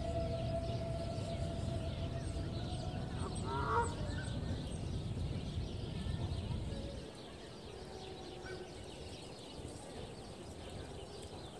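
Geese honking from the water, the loudest call about four seconds in, over a low background rumble that eases off about seven seconds in.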